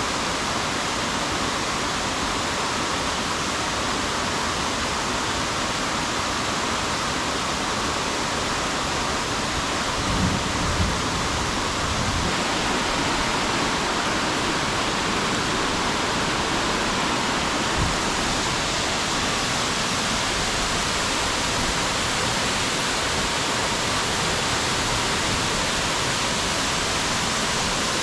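Steady rushing of a nearby stream or waterfall, with a few short low knocks about ten seconds in and once more near the end of the middle.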